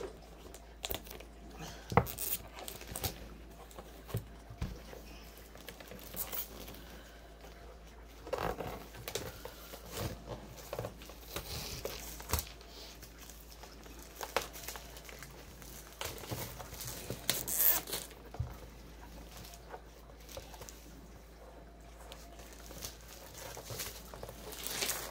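Plastic shrink-wrap being torn and crinkled off a cardboard kit box by hand: irregular crackling and rustling with scattered sharp clicks, in a few louder clusters.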